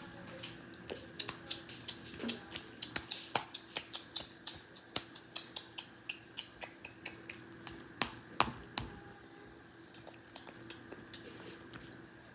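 Slime being squeezed and kneaded by hand, making a quick run of sharp wet clicks and pops, about three a second, with two louder pops about eight seconds in before it fades.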